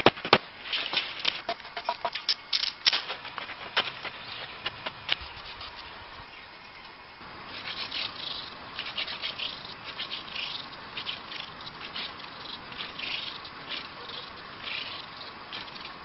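Sharp snaps and rustling of dry twigs and leaf litter for the first few seconds. Then, from about seven seconds in, a wooden hand drill twirled between the palms on a wooden fireboard rasps in a run of short repeated bursts as it works up an ember.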